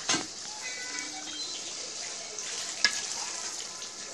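Mutton curry sizzling and frying in a metal karahi while it is stirred with a metal ladle, which clinks sharply against the pan twice, once at the start and once just under three seconds in.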